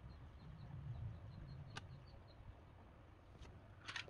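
Faint handling of small electronic parts: a single light click about two seconds in and a short cluster of clicks near the end, as a plastic-and-metal component is picked up in the fingers. Under it, a low rumble and a faint, evenly repeated high chirping.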